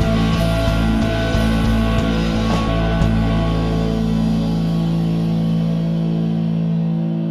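Rock music with guitar over a steady beat; about three seconds in the beat stops and a held chord rings on, slowly fading.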